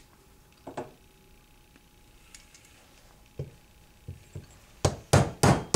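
Mainspring housing pin being tapped into a Colt 1911 frame with a small plastic screwdriver handle: a few faint knocks, then near the end a quick run of sharp taps, about three a second.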